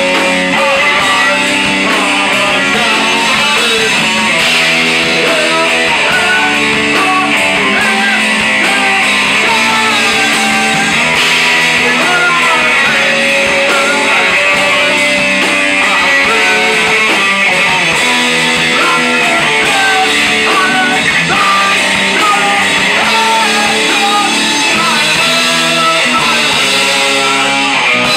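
Live rock band playing loud in a small room, electric guitar to the fore over drums.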